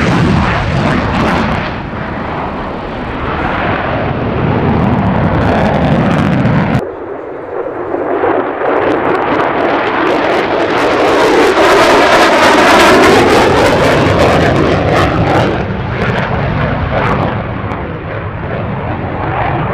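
Fighter jet engines thundering through a series of airshow passes. First an F-16 in afterburner. After a cut about seven seconds in, a single-engine F-35 swells to its loudest midway with a swirling, phasing whoosh as it passes, then fades.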